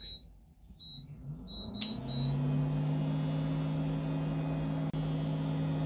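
Induction cooktop being switched on: a few short high beeps from its touch controls, then about two seconds in its fan and coil hum start and run steadily under the pan.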